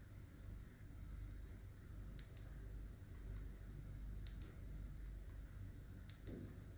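Faint sharp clicks, mostly in quick pairs, repeating every second or so from about two seconds in, over a low steady hum.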